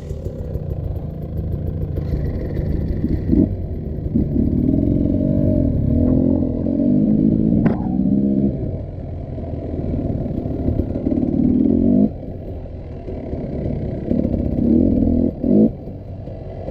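Off-road motorcycle engine revving up and down as it climbs rough ground, its pitch rising and falling again and again. A sharp knock comes about eight seconds in.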